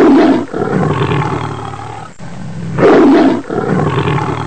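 Tiger roaring twice, about three seconds apart, each loud roar trailing off into a lower, fading rumble.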